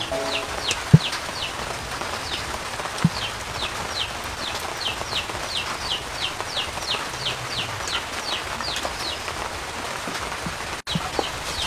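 A bird peeping over and over, short falling chirps about three a second, over a steady hiss. A sharp knock about a second in, and a lighter one a couple of seconds later.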